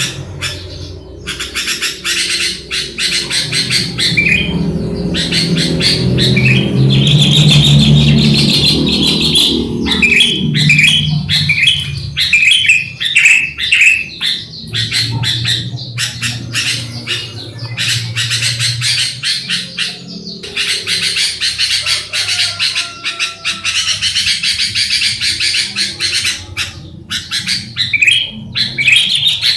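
Sooty-headed bulbuls (kutilang) chirping and calling over and over in quick, bright phrases. A low hum runs underneath at times.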